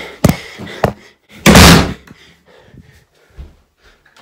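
Two sharp knocks, then a loud half-second thump about a second and a half in.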